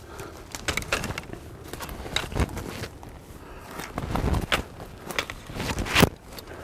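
Hurried footsteps crunching through leaf litter on the forest floor, with rustling of camouflage clothing and gear. Heavier steps come about four seconds in, and about six seconds in a single sharp crack is the loudest sound.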